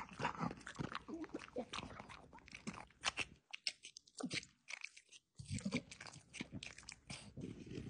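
French bulldog chewing crunchy food, a run of irregular crunches that nearly stops for about two seconds midway, then starts again.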